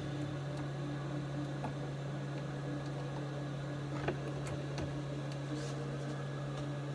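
Steady low machine hum from running bench equipment, with a faint click about four seconds in.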